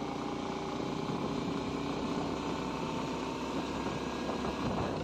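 Bajaj Pulsar 125's single-cylinder engine running steadily while the motorcycle cruises, under a steady hiss of wind and road noise.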